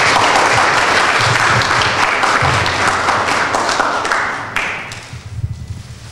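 Audience applauding as an award is handed over, dying away about four and a half seconds in.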